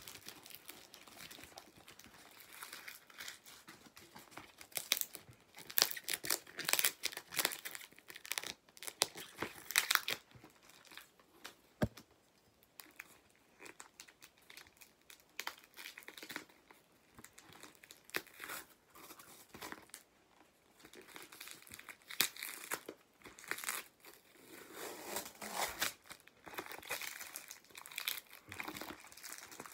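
Plastic and paper packaging crinkling and tearing by hand in irregular bursts, with a single sharp click about twelve seconds in.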